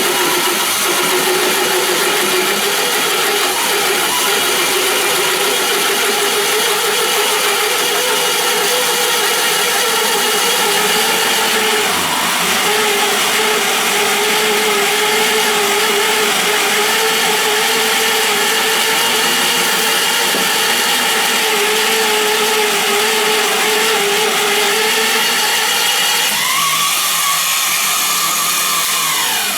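A power drill on a stand turning a 28 mm carbide-tipped hole saw at low speed through 3 mm steel sheet: a steady motor hum under the grinding of the cut. About 26 seconds in, the motor's pitch rises, and the sound stops abruptly at the end.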